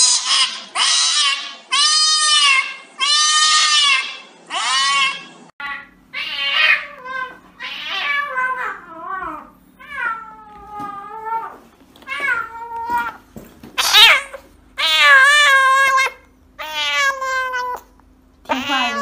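Cats meowing and yowling in distress while held for injections. First comes a rapid run of about six loud, drawn-out yowls, each rising and then falling in pitch. After a cut, a grey cat's meows rise and fall in pitch, with loud cries between quieter gaps.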